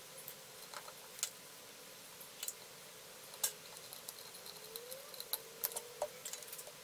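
Faint, irregular small clicks and clinks of small metal parts being handled while fitting nuts and washers to a model steam engine, over a faint steady hum.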